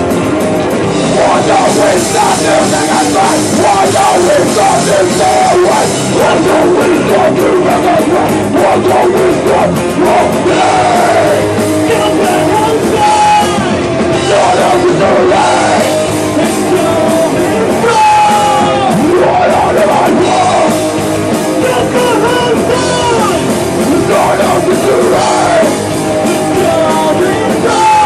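Hardcore punk band playing live, loud and without a break.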